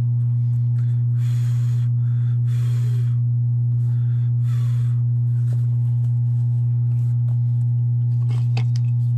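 A loud, steady low hum throughout. Three short rustles of leather being folded and pressed down by hand come about one and a half, two and a half and four and a half seconds in.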